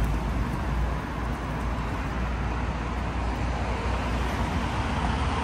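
Steady road traffic noise: a continuous rumble and hiss of passing vehicles.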